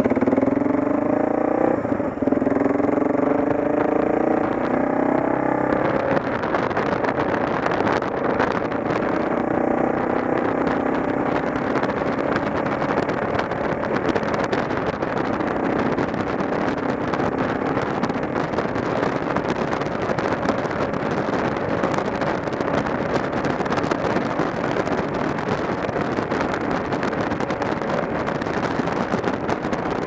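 Adventure motorcycle's engine pulling away and accelerating, rising in pitch with a gear change about two seconds in. From about six seconds in, steady wind rush on the microphone at road speed covers the engine running at a steady cruise.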